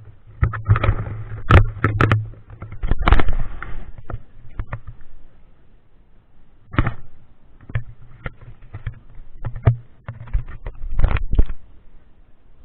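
Irregular sharp cracks and snaps, some in quick clusters and the loudest about a second and a half, three seconds and eleven seconds in, over rustling and a low steady rumble.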